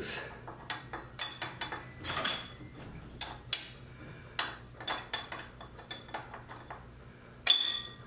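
Irregular metallic clicks and clinks of a hand tool on the garage door's spring rod hardware as a fastener is being loosened, with a louder clink near the end.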